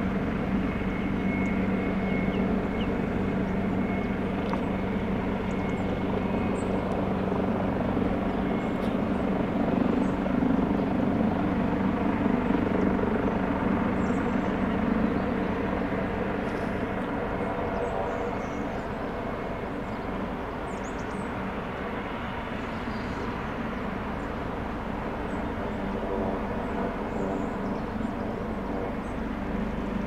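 Leonardo AW139 helicopter running on the ground, its turboshaft engines and rotor giving a steady whine over a hum, swelling slightly partway through and then easing a little.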